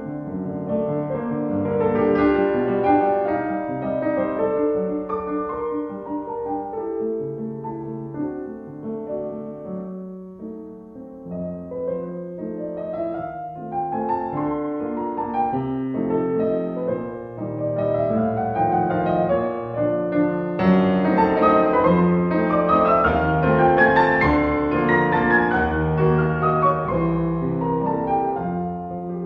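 Piano music playing as a soundtrack. It softens briefly about a third of the way in, then plays repeated rising runs of notes that climb higher toward the end.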